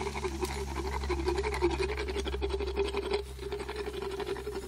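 Equine dental float rasping across a horse's molars in rapid, even strokes, filing down sharp, ragged tooth edges. The rasping dips briefly about three seconds in.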